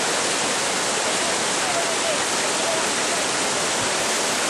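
Whitewater river rapids rushing, a loud, steady, even noise of churning water.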